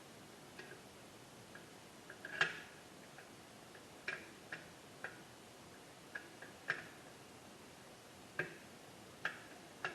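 Irregular light clicks and taps of hand tools and small parts against a radio chassis, about a dozen, the sharpest about two and a half seconds in.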